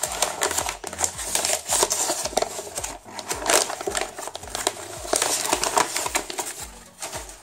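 Brown packing paper crinkling and rustling as hands unwrap it from a packed item, a dense run of sharp crackles.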